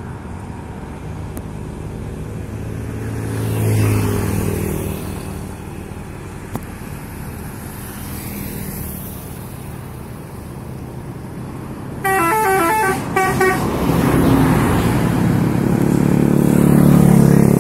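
Road traffic rumbling, with a vehicle passing about four seconds in. Near the end a bus's multi-tone 'telolet' horn plays a quick tune of rapidly changing notes, then the bus's engine grows loud as it passes.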